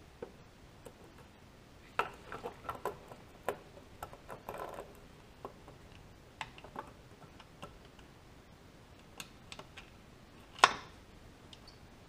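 Scattered clicks and light knocks of a power feed drive unit being handled and fitted onto the knee crank shaft of a milling machine. There is a cluster of taps about two seconds in, and the loudest single knock comes near the end.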